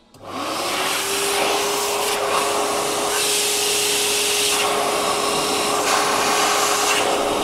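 Stainless-steel ROZEN automatic sensor hand dryer switching on as hands go under it: its motor spins up within the first half second to a steady whine over a loud, even rush of air, and runs on.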